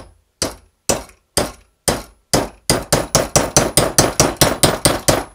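Small hammer striking a thick 3D-printed ABS test tower clamped in a bench vise: about twenty sharp knocks, first about two a second, then quicker at about four a second. The printed part holds and does not break.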